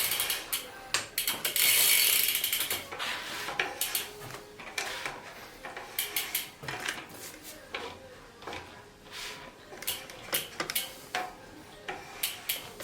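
Bicycle freewheel ratchet clicking as the wheel is spun, with irregular mechanical clicks throughout and a short rushing noise about two seconds in.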